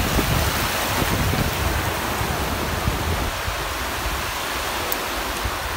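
Small surf washing up onto a sandy beach: an even rush of water, with a heavier low rumble that eases off about three seconds in.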